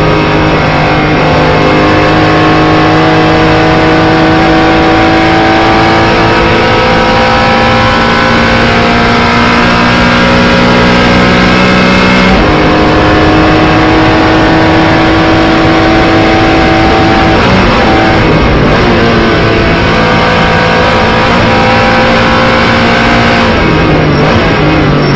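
Porsche Cayman GT4 Clubsport's flat-six engine at full throttle, heard from inside the cockpit, its pitch climbing slowly under load. About halfway through it drops abruptly with a quick upshift and starts climbing again, and near the end it lifts off as the car slows.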